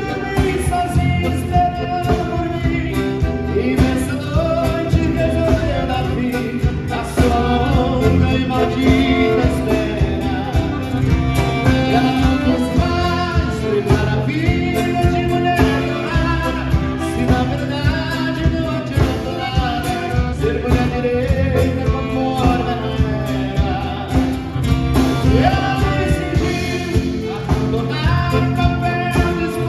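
Music: a song with a singing voice over instrumental accompaniment and a steady bass line.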